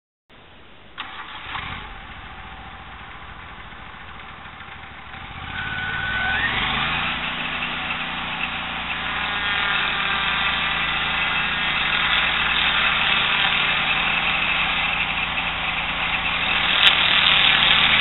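Portable swing-blade sawmill's engine running low, then throttled up about six seconds in with a rising pitch and held at full speed as the circular blade spins. Near the end it gets louder as the blade starts into the cottonwood cant.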